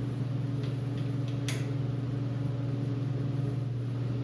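Steady low hum of a running motor or fan, with a few faint light clicks, the clearest about a second and a half in.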